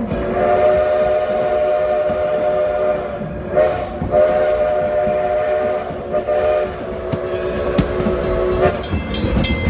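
Steam locomotive's chime whistle blowing a series of blasts: a long one, a short toot, another long one, a short toot and a final long blast that stops near the end. The rumble and clatter of the moving train run underneath.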